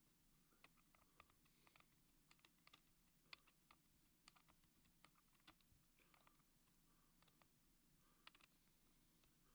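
Near silence, with faint, irregular light clicks scattered through.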